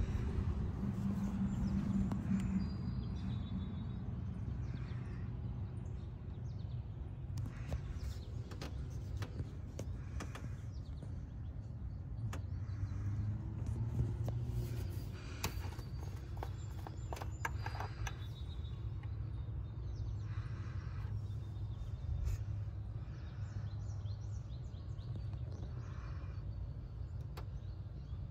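Honda B16A DOHC VTEC four-cylinder idling steadily, with its oil filler cap off.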